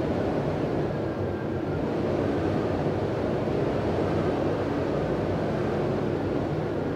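Wind whistling through the gap of a door: a steady rushing noise with a faint high whistle that comes and goes.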